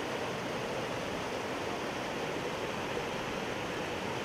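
Muddy floodwater rushing down a street over rocks and debris: a steady, unbroken rush of water.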